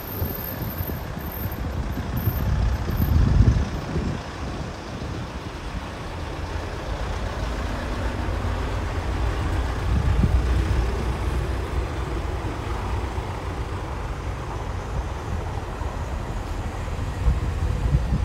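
Outdoor street noise: a steady low rumble that swells about three seconds in and again about ten seconds in.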